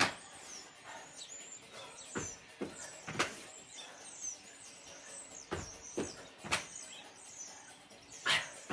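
Trainers landing on an exercise mat over paving slabs in repeated thuds, often two about half a second apart, as squat jumps and star jumps are done. Small birds chirp in the background.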